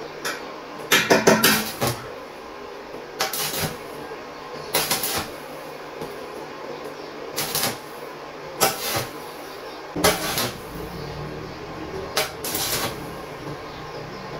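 Stick welder striking short tack welds on thin steel sheet: about nine brief bursts of arc crackle, each under a second, one to two seconds apart. The tacks are kept short and alternated rather than run as a continuous bead so the thin sheet does not burn through.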